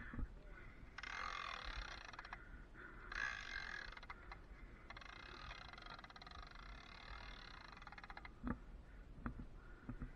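Faint rattling whir of a cable lasher being handled and turned on the strand, in three spells of one to three seconds, followed by a few light knocks near the end.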